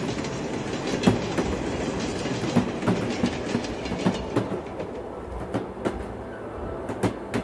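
Train running on the rails with a clickety-clack of wheels over the track joints, gradually growing quieter.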